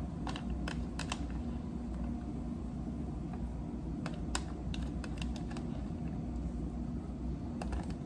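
Light clicks of a thin clear plastic clamshell container being handled: a few near the start, a quick cluster around the middle and a couple near the end, over a steady low hum.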